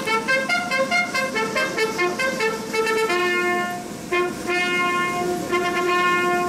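Military brass band playing march music: a run of short, quick notes, then longer held notes from about three seconds in, with a brief break near four seconds.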